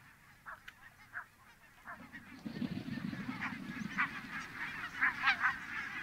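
Barnacle geese calling. A few scattered yapping calls come first, then from about two seconds in a large flock calls densely and continuously over a low noise.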